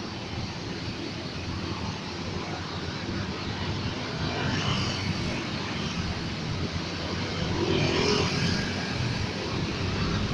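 A road vehicle's engine and road noise, a steady rumble growing gradually louder as it approaches.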